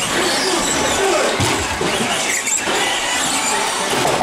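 Several radio-controlled short course trucks racing on a carpet track. Their motors whine up and down in pitch over a steady wash of tyre and running-gear noise.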